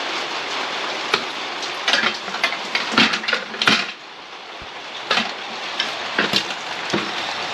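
Small metal parts and tools clinking and tapping as a replacement light fitting is handled and fitted: a dozen or so scattered light knocks and clicks over a steady hiss.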